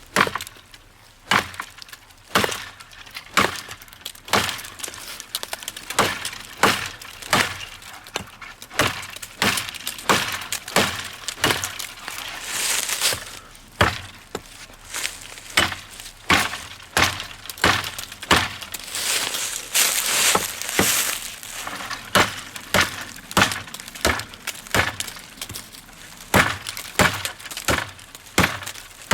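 Klecker Knives KLAX hatchet head chopping green wood: a steady run of sharp chopping strikes, one to two a second.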